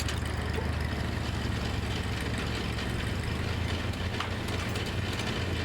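Ford 8N tractor's four-cylinder flathead engine running steadily.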